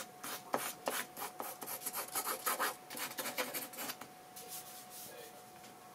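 A run of quick, dry scratching strokes, many in a row for about four seconds, then thinning out toward the end.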